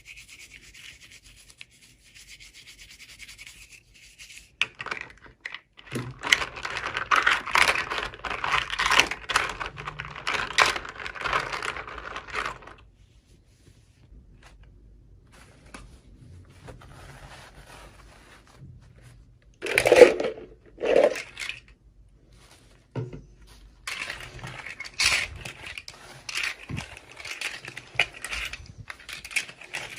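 Hands rubbing, scratching and crinkling toy packaging during an unboxing, in spells of rapid scraping strokes: a long spell from about six seconds in, two louder short rustles around two-thirds of the way through, and more crackly handling near the end.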